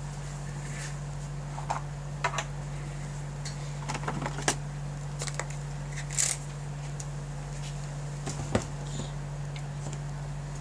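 Scattered light clicks and small knocks from objects being handled, over a steady low electrical hum.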